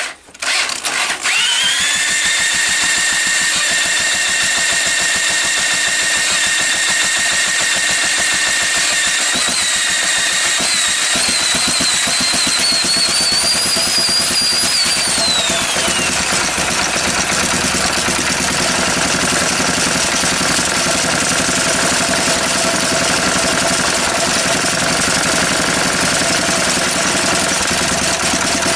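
Small stationary petrol engine being spun over by an electric drill on its flywheel nut. About ten seconds in the engine fires and picks up, the drill's whine climbs and then falls away as the drill is pulled off, and the engine keeps running by itself with a steady beat.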